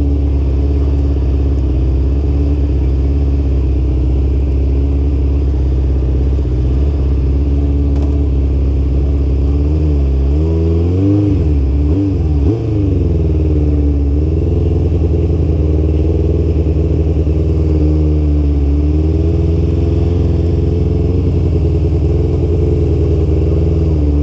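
Motorcycle engine running at low revs as the bike rolls at walking pace. There is a steady low engine note, with a few short throttle rises and falls in pitch a little before halfway and a brief dip about twelve seconds in.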